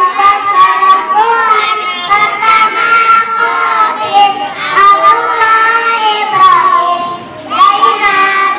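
A group of young children singing a song together, with long held notes and a brief pause about seven seconds in.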